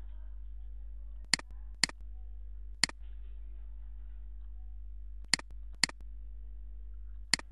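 Six sharp computer mouse clicks, two of them in pairs half a second apart, over a steady low electrical hum.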